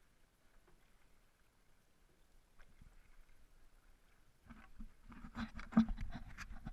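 Outrigger canoe being paddled: faint at first, then from about four and a half seconds in, a run of water splashes and quick knocks at the hull.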